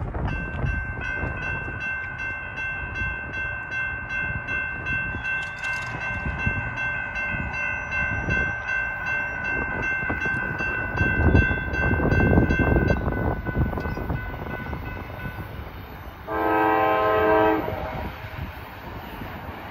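Railroad grade-crossing warning bell ringing steadily as the gates lower, stopping about two-thirds of the way through. Near the end comes one short, loud blast of the lead CSX GE AC4400CW locomotive's air horn. Wind rumbles on the microphone throughout.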